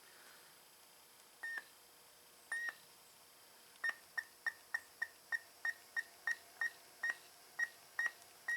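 Primer bulb on a Ryobi S430 four-stroke trimmer's carburetor being pressed over and over, each press a short squeaky click: two slow presses, then about three a second. It doesn't seem to be drawing any gas up, which the owner puts down to a carburetor he bets is all varnished up.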